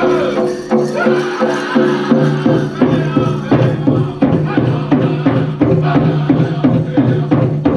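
Powwow drum group singing a chicken dance song: a chorus of voices over a big drum in a steady beat. The beat comes in strongly about two seconds in.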